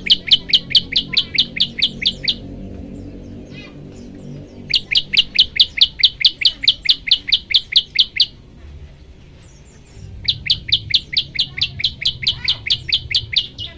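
A prenjak lumut singing three loud runs of rapid, sharp, evenly repeated notes, about six a second, each run lasting about three seconds with short pauses between. Faint chirps from other birds sound in the gaps.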